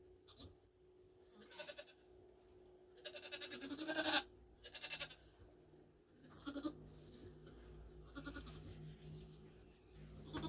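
Nigerian Dwarf goats bleating, several separate calls with the longest and loudest about three to four seconds in. A low steady hum comes in a little past halfway.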